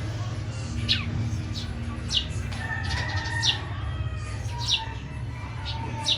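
A bird calling: a short, sharply falling note repeated about every second and a quarter, with softer bird notes between and a steady low rumble underneath.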